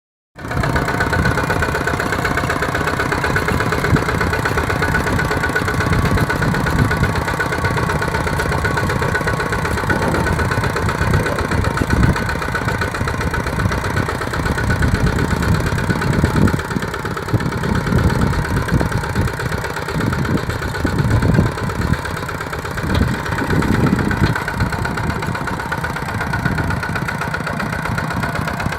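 Kubota RT120 single-cylinder diesel engine running steadily under ploughing load, with an uneven low rumble underneath.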